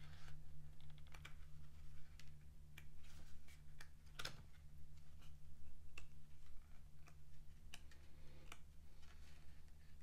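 Paper pages of a booklet being leafed through: a scatter of soft flicks, rustles and taps, one louder snap about four seconds in.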